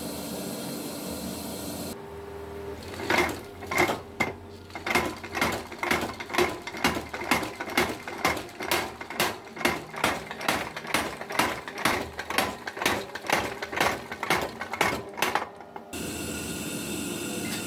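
Hammer blows on hot steel over an anvil, forging a sickle blade: a long run of sharp, ringing strikes at a little over two a second. A steady rushing noise, like a forge blower, runs before the hammering starts and again after it stops.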